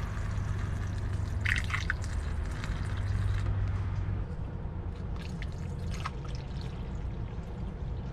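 Liquid battery additive being poured from a plastic gallon jug through a plastic funnel into a car battery's cells, trickling and dripping, with a few short clattering noises from handling the jug and funnel.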